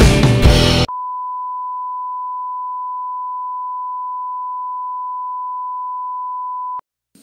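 Music for about the first second, then a steady 1 kHz test tone, the reference tone that goes with television colour bars, held at an even level and stopping abruptly shortly before the end.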